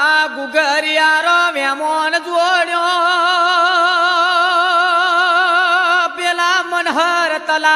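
Gujarati reghdi folk singing: a single voice holds one long drawn-out note with an even, wavering vibrato. Shortly before the end it breaks off and a new phrase begins, dipping in pitch.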